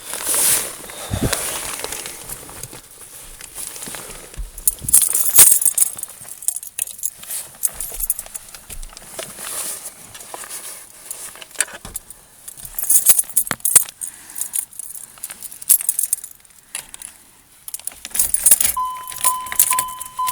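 Car keys jangling and clicking as they are handled, in several bursts. A steady electronic warning tone starts near the end.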